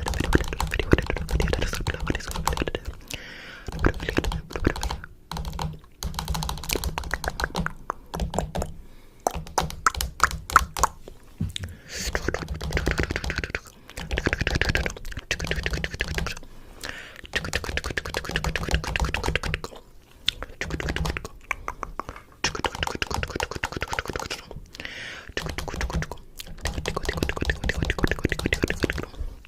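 Rapid, dense clicking and tapping in irregular runs broken by short pauses, much like fast typing on a keyboard.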